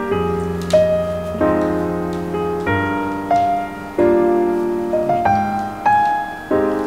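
Piano background music: a chord-and-melody tune with a new note or chord struck every second or so, each ringing out and fading.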